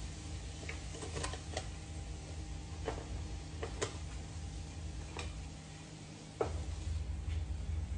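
Scattered light clicks and taps of metal tongs lifting croffles out of the electric waffle maker, over a steady low hum. The hum gets louder about six and a half seconds in.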